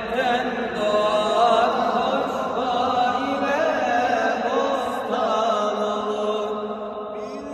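Unaccompanied male voice singing a Turkish ilahi (Sufi hymn) in long, ornamented notes that glide up and down, without a beat, easing off near the end.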